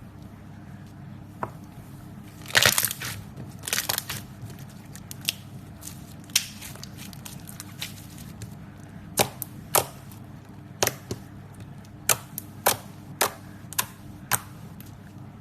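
Slime being squeezed and poked, making sharp clicking pops. There are two crackly clusters a few seconds in, then single pops about every half second to second, all over a low steady hum.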